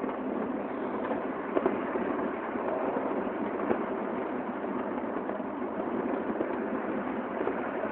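New Year's fireworks and firecrackers going off nonstop, a dense crackle of many small bangs with a couple of sharper cracks about one and a half seconds in and one near four seconds, recorded on a phone microphone.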